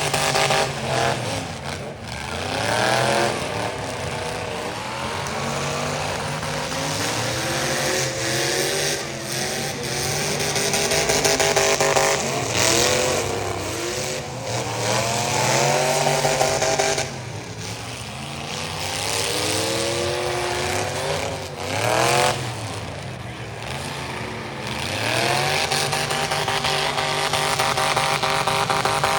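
Demolition derby cars' engines revving hard again and again, several at once, their pitch climbing and dropping as the drivers accelerate and back off.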